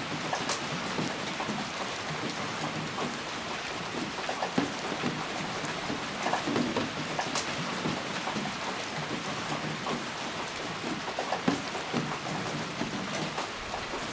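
Steady rain falling, with individual drops striking close by at irregular moments as short sharp taps over the even hiss.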